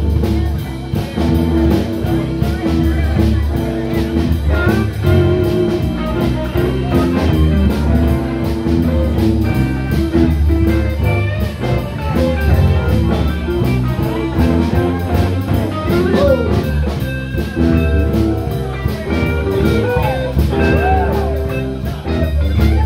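Live blues band playing: electric guitars over bass and a drum kit keeping a steady beat.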